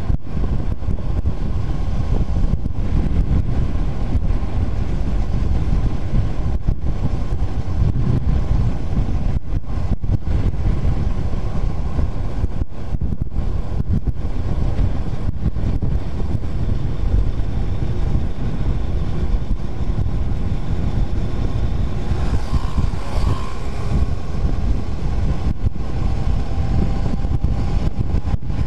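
Wind rushing over the microphone of a Honda CBR250R motorcycle cruising at steady speed, with the bike's single-cylinder engine running underneath.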